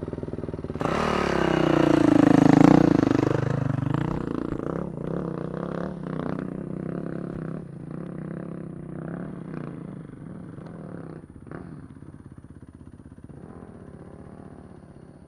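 Dirt bike accelerating hard up a steep clay hill climb. The engine revs up about a second in, rising in pitch, then fades steadily as the bike climbs away, with a few knocks along the way.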